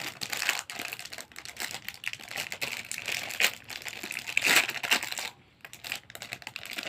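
Plastic packaging crinkling and rustling as a small fidget toy is unwrapped and handled, with a brief pause a little past five seconds in.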